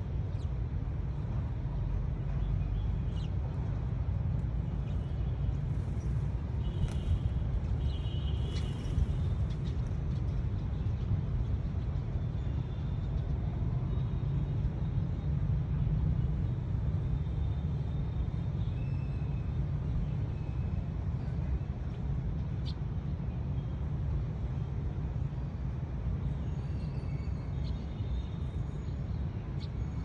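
A steady low rumble throughout, with faint sparrow chirps now and then, most of them about six to nine seconds in.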